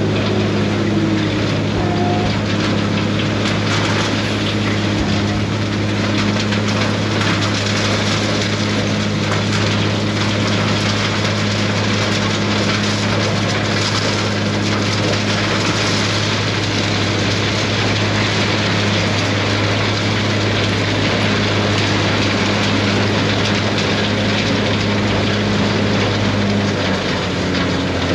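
Dump truck's diesel engine running at steady revs under load, a constant drone whose pitch drops near the end as the engine slows.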